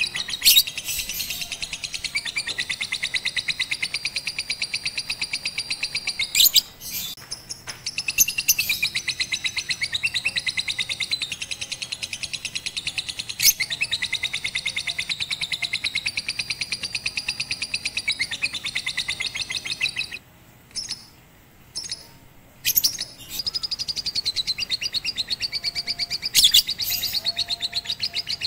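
Lovebird chattering in one long, very fast, unbroken trill, with a few sharper notes mixed in. It pauses briefly about seven seconds in, then stops for about three seconds near the two-thirds mark, with only a few short chirps, before starting again.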